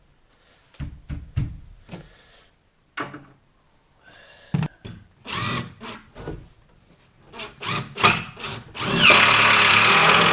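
Power drill driving screws into wood: several short trigger pulses, then a longer continuous run near the end that stops suddenly, drawing the glued pieces of the bed frame together. A few knocks of wood being handled come before.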